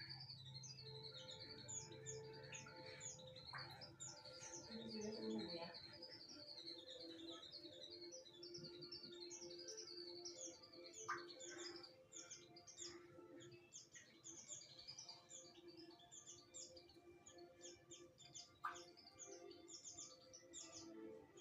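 A white-eye (pleci) singing faintly, a rapid, unbroken stream of short high chirps, in a song its owner calls strange.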